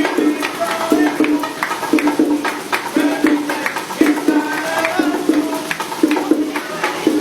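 Music with a steady percussion rhythm: a strong knock about once a second with lighter clicking strokes between.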